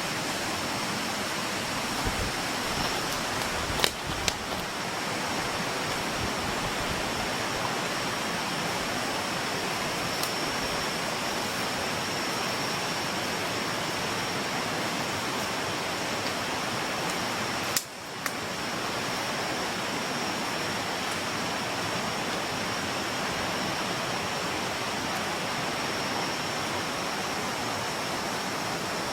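Steady rush of flowing river water, with a thin high steady tone running over it. A couple of sharp clicks come about four seconds in and again near eighteen seconds.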